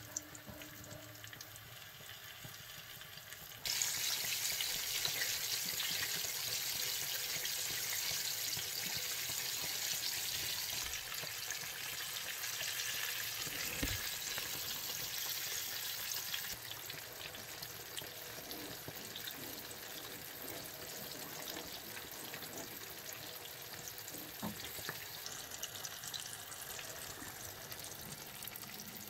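Hot oil sizzling as a whole cornstarch-coated sea bream fries in a pan: a quieter sizzle jumps suddenly to a loud, dense hiss about four seconds in as the fish goes into the oil, then eases somewhat later on. A single dull knock comes about halfway through.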